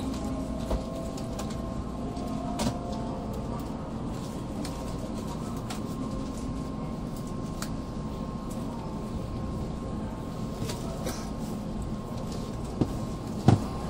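Steady low hum inside a standing N700A Shinkansen car at the platform, with a faint steady high tone over it. A few light clicks, and two sharp knocks about a second apart near the end.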